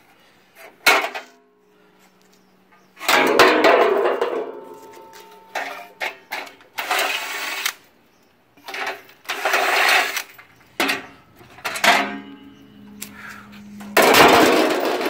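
Cordless drill driven in repeated short bursts, backing out the fasteners of aluminum hurricane panels, with the metal panels rattling as they come loose.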